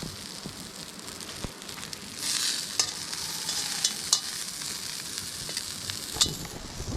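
Food sizzling in a hot pan: a steady frying hiss that swells about two seconds in, with a few sharp pops.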